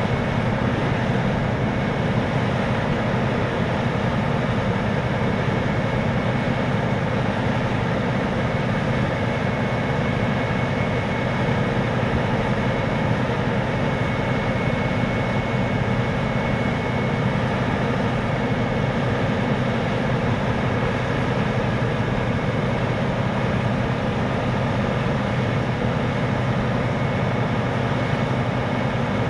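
Diesel engine of a Vermeer D500x500 horizontal directional drill running steadily, with a thin, high, steady tone over the engine noise.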